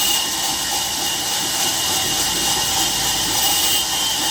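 Steady machine noise from a sawmill saw running: an even hiss with a constant high whine.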